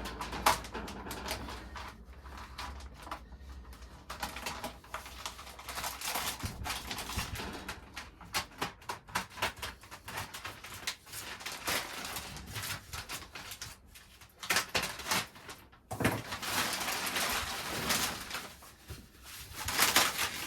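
Cardboard box and plastic packaging being handled and opened: irregular rustling, crinkling and tearing with many small clicks and knocks.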